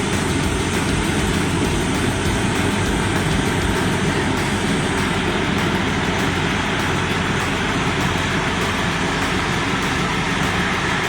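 A heavy vehicle's engine running steadily under a constant rushing noise.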